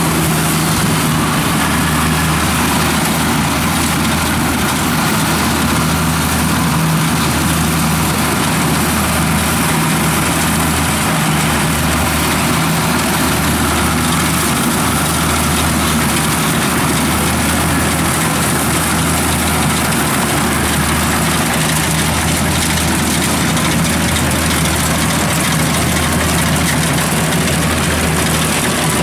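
Kubota DC70 rice combine harvester running steadily as it harvests. Its diesel engine gives a low, steady hum that swells and eases slightly, with an even hiss of machinery above it.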